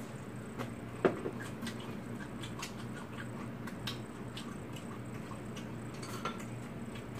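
Eating at the table: chewing and small clicks of chopsticks against bowls, with one sharper clack about a second in, over a steady low hum.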